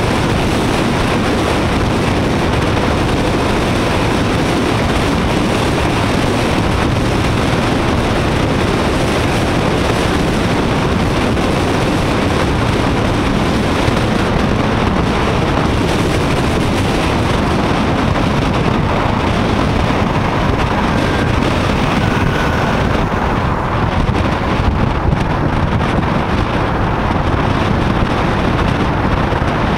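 Steady wind noise buffeting an action camera's microphone on a moving motorcycle, with engine and road noise underneath.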